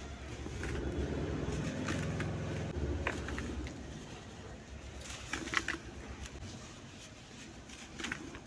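Dry crumbly lumps breaking apart by hand, giving scattered crisp crackles and clicks. A low droning sound is loudest in the first three seconds.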